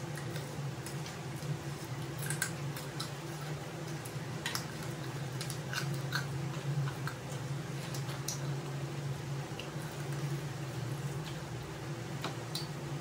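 Close-up eating sounds of chicken wings being bitten and chewed: wet chewing and smacking with scattered short, sharp clicks, over a steady low hum.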